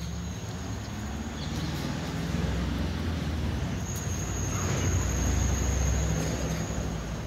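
Low engine rumble of a motor vehicle going past, building over a few seconds and then easing off.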